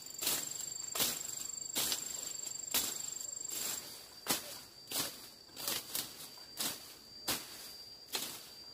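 Insects trilling a steady high note, under a run of short, sharp rustling strikes about every three-quarters of a second.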